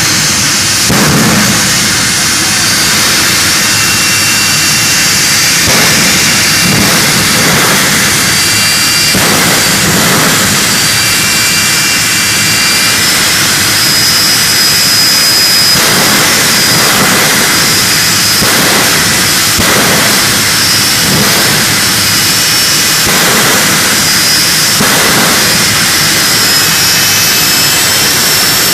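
Jet dragster's jet engine running steadily and loudly, with a high whine that drifts slightly in pitch over the rushing exhaust noise.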